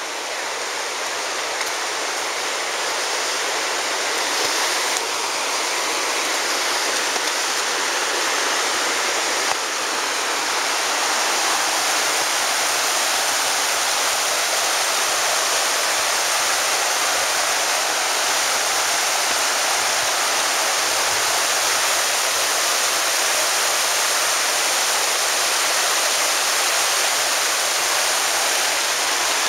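Virgin River flowing over rocks in a narrow canyon: a steady rush of moving water.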